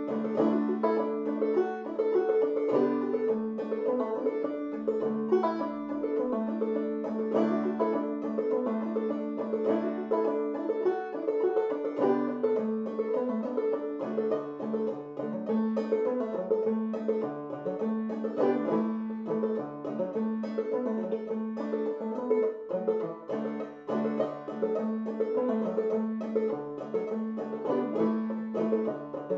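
Open-back banjo played clawhammer style, an old-time tune in the key of D with the banjo tuned aDADE. A quick, even run of plucked notes, with the high fifth string sounding a steady drone between the melody notes.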